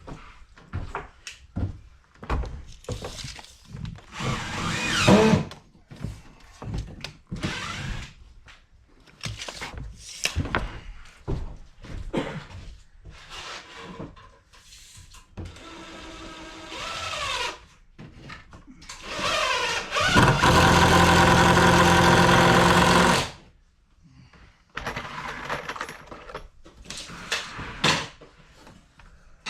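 Carpentry work noise: short knocks and clatter of tools and lumber, with a power drill whirring in short runs. The longest run is a steady one of about three seconds, some twenty seconds in, and an earlier run rises in pitch as it spins up.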